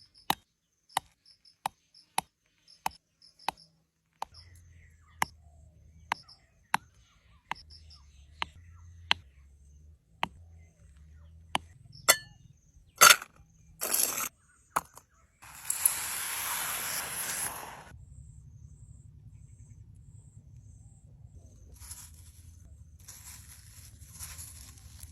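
Sharp knocks repeating a little under twice a second, then a few louder knocks, followed by a rush of hissing noise lasting about two seconds.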